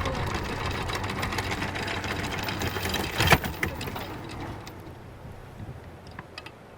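Anchor windlass hauling in chain with a rapid clattering rattle and one loud clunk about three seconds in; the rattle stops after about four and a half seconds, leaving a low steady engine hum.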